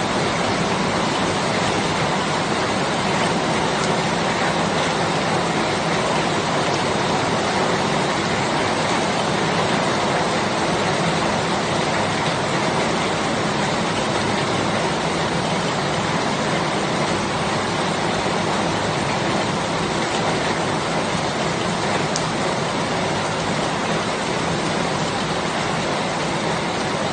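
Rain falling steadily: an even, unbroken hiss.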